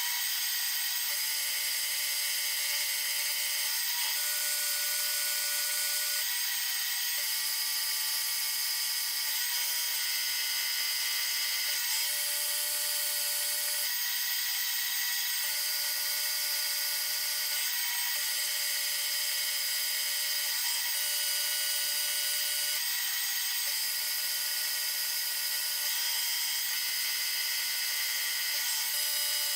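Powermatic milling machine running, its cutter machining a bar of cold-rolled mild steel: a steady high-pitched whine whose tones shift every second or two.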